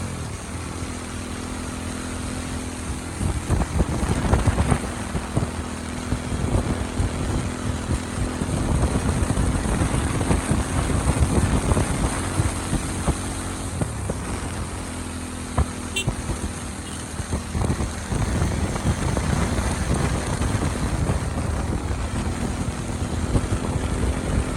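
Motorcycle engine running at a steady pace while riding, under a heavy, uneven rumble of wind on the microphone.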